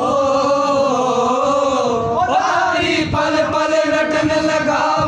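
Voices singing a Jain devotional bhajan in a Rajasthani dialect, holding long sustained notes, with a new phrase starting about three seconds in.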